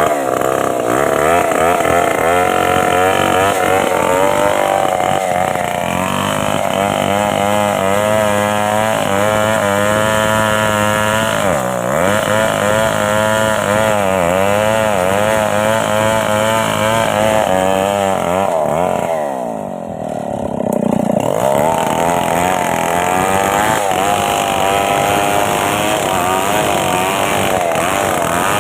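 Stihl two-stroke chainsaw running continuously while cutting wood, its engine pitch wavering under load. The pitch dips briefly about twelve seconds in, and sags, then climbs back, around twenty seconds in.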